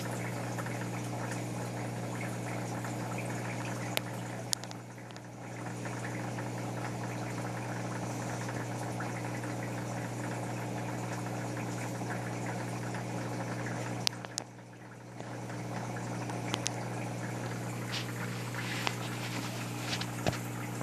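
Saltwater reef aquarium running: steady bubbling and rushing of circulating water over a steady low pump hum, with a few small clicks. The water sound drops away briefly twice.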